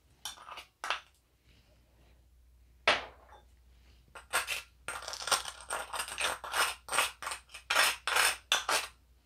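A metal spoon clinking and scraping against kitchenware while salt is spooned in to season a pot of pho broth. There are two light clinks, a sharp knock about three seconds in, then a quick run of clinks and scrapes for about five seconds.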